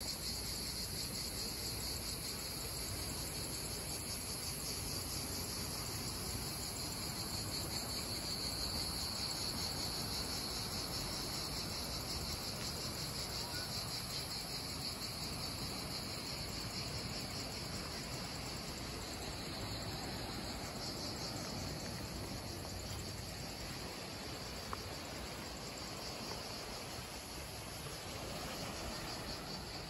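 A steady chorus of insects chirring, a high, rapidly pulsing trill that holds throughout, over a faint low background hiss.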